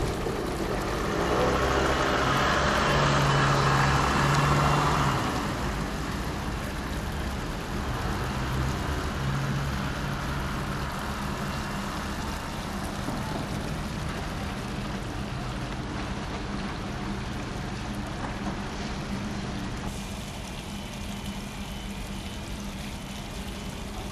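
A motor vehicle's engine running, swelling for a few seconds near the start and then easing off, over a steady outdoor noise with a low hum.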